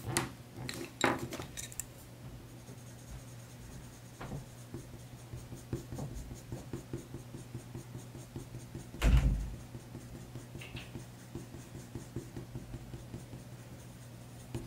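Coloured pencil working in small strokes on drawing paper, with faint scratching and light ticks, after a few sharp clicks of pencils being handled near the start. One dull thump about nine seconds in, under a low steady hum.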